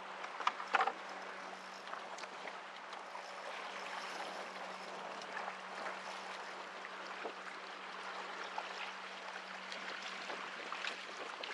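Water lapping and trickling against a kayak hull in choppy wind, a steady wash of sound, with a few sharp knocks or splashes within the first second.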